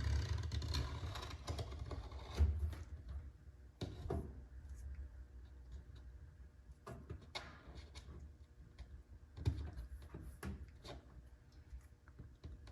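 Faint, scattered clicks and light scrapes of hand-tool work on freshly applied perforated window vinyl as it gets a final trim.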